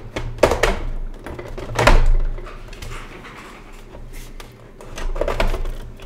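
Plastic back cover of an all-in-one PC being pried off with a metal pry tool: sharp clicks and knocks as its clips release and the case is handled, loudest about two seconds in, with another about half a second in and a few more about five seconds in.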